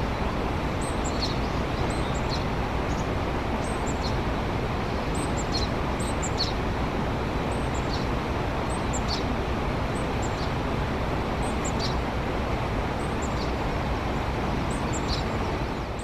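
Japanese tit singing short high two-note phrases, repeated about once a second, over a louder steady rushing background noise.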